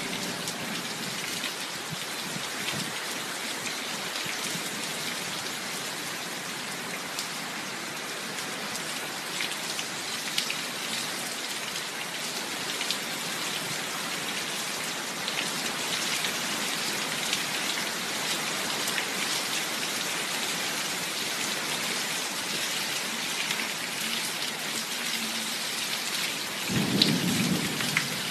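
Heavy rain pouring steadily as an even hiss, with a brief low rumble near the end.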